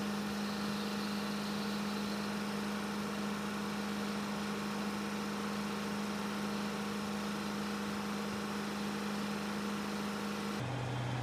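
A machine running with a steady, even hum; near the end it cuts abruptly to a lower-pitched hum.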